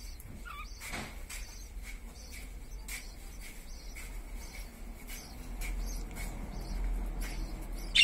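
Cockatiels giving short, high chirps and squeaks at irregular intervals, with one louder call at the very end.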